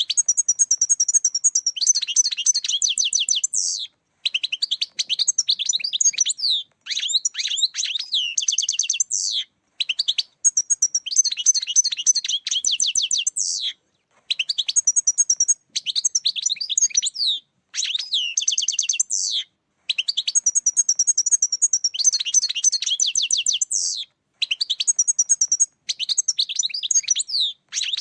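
European goldfinch song: fast, liquid twittering and tinkling phrases a few seconds long, broken by short silent gaps.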